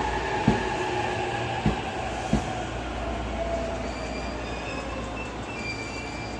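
A Takasaki Line commuter train rolling at low speed along the platform. Its wheels knock sharply over rail joints three times in the first couple of seconds, and a thin, high wheel squeal sets in from about four seconds in, over a steady low rumble.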